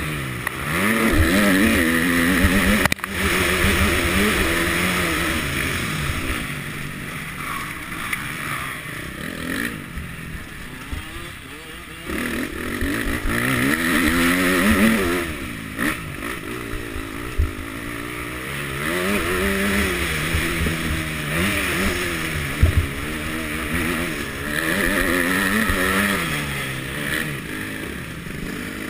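KTM 250 motocross bike engine, heard from the rider's camera, revving up and dropping back over and over as the throttle is opened and closed around the dirt track. A couple of sharp knocks stand out, one about three seconds in and another near the end.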